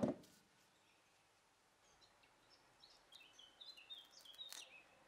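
Faint bird chirps: a quick run of short high notes in the second half, after a brief click at the very start.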